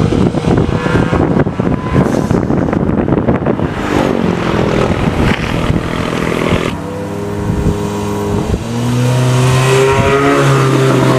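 Modified 10th-gen Honda Civic Sport hatchback's turbocharged four-cylinder exhaust, fitted with a Borla S-Type exhaust and Megan Racing downpipe, revving up and down under acceleration. After about seven seconds it settles into a steady exhaust drone at near-constant revs, growing louder at about nine seconds as the car comes closer.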